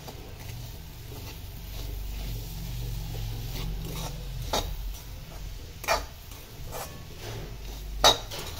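A crumbly nut and date-paste mixture being stirred in a metal pan, the utensil scraping the pan. Three sharp clinks come in the second half, the last and loudest near the end.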